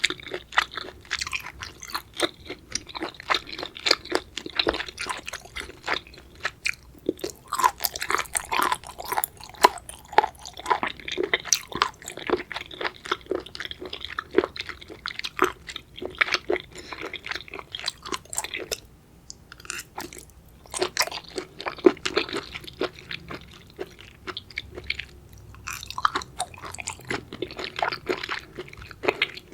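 Close-miked chewing of raw seafood: wet, crunchy bites and rapid chewing clicks, pausing briefly twice.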